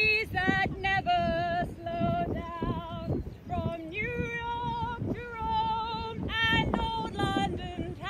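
A woman singing a melody unaccompanied, in a high voice, with long held notes and vibrato.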